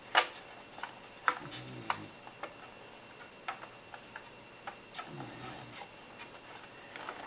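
Scattered small clicks and light scraping of a small kit nut driver and a 2 mm nut against the hard plastic of a model truck cab as the nut is run on. The sharpest click comes just after the start.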